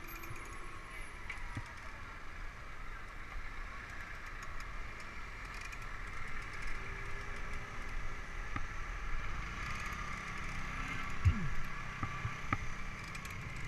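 Street traffic heard from a slowly moving bicycle: a steady hum of car engines and tyres, with a few light knocks and growing louder in the second half. A short louder sound comes about eleven seconds in.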